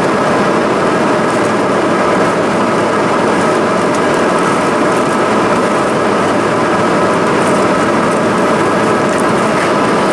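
Steady cabin noise inside an Embraer E175 airliner in flight: air rushing past the fuselage and the hum of its two GE CF34 turbofan engines, with a few faint steady tones running through it.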